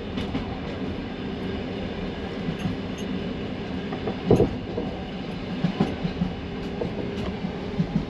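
Passenger train carriage rolling along at speed, heard from inside the compartment: a steady rumble of wheels on rails, broken by a few sharp knocks, the loudest about halfway through.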